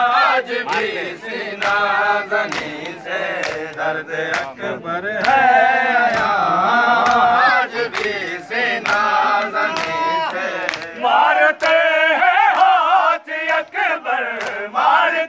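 A crowd of male mourners chanting a noha refrain in unison while beating their chests in matam, with sharp hand-on-chest slaps cutting through the singing.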